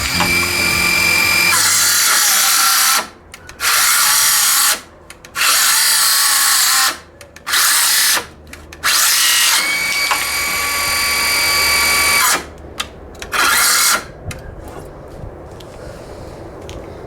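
DeWalt 12V XTREME brushless cordless circular saw running at high speed with a whine, cross-cutting 2x4 lumber in about six runs with brief gaps between them. The last runs are short, and the saw stops about 14 seconds in, with its 2 Ah battery nearly flat.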